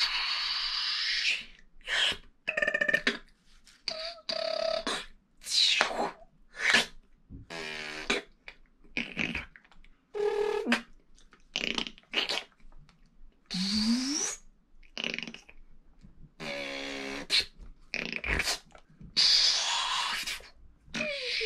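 A beatboxer making vocal Foley sound effects with his mouth: a rapid string of short, separate noises, among them hissing blasts, buzzing pitched tones and quick sweeps in pitch. One sweep rises about two thirds of the way through and another falls near the end.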